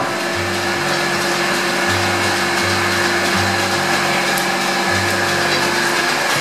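Steady motor whir of the coffee-bean roasting machine's stirring drum, under background music with a slow stepping bass line.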